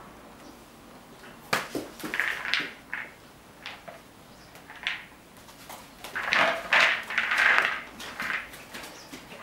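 Horse treat ball rattling with the feed pellets inside as a horse noses it and rolls it across rubber stable mats. It comes in short bursts, first about a second and a half in and again around two to three seconds, then a longer stretch from about six to eight seconds.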